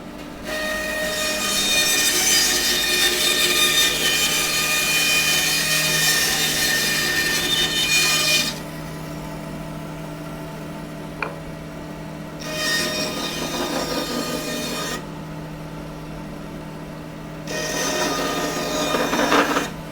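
Power saw running with a steady motor hum, its blade cutting through a wood block three times: one long cut of about eight seconds, then two shorter cuts of two to three seconds each, with the saw idling between them.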